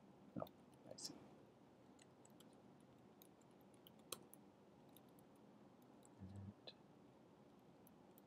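Near silence with a few faint, scattered clicks from a computer keyboard and mouse during code editing, and a brief low hum about six seconds in.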